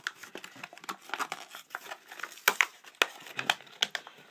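Plastic blister packaging of a Matchbox die-cast toy crinkling as it is handled and opened, a run of irregular sharp crackles and clicks.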